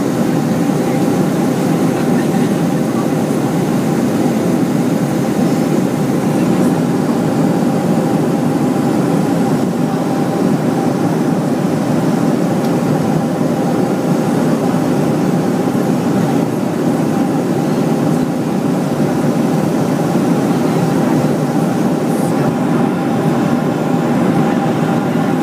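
Steady jet-engine and airflow noise of a Boeing 737 heard inside the cabin: an even, unbroken rumble with two faint steady hums running through it.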